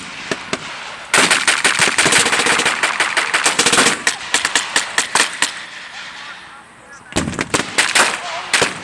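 Machine guns and rifles firing blanks: a long rapid machine-gun burst starts about a second in and lasts some three seconds, single shots follow, and after a short lull another rapid string of shots comes near the end.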